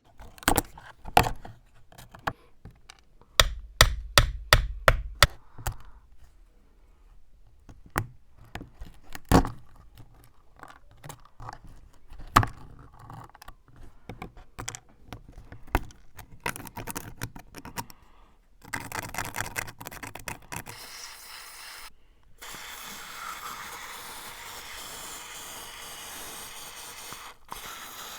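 Rusty metal pruning shears being handled: a series of sharp metal clicks and knocks, then a quick run of clicks. Near the end comes a steady rushing noise lasting about five seconds.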